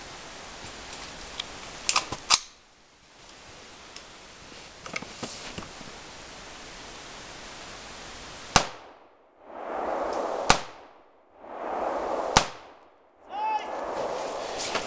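Rifle shots: one about two seconds in, then three evenly spaced shots about two seconds apart in the second half. The recording level cuts out briefly after each loud crack.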